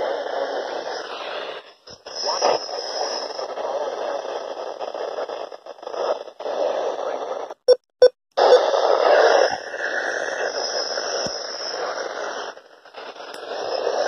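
Handheld Midland NOAA weather radio's speaker hissing with static, cutting out for a moment several times, with a few sharp clicks about eight seconds in.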